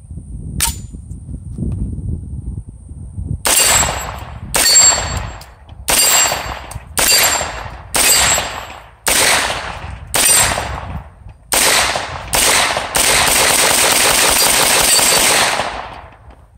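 An FM9 AR9 9mm AR-style carbine is fired: about nine single shots roughly a second apart, then a fast string of shots that run together for about three seconds before stopping.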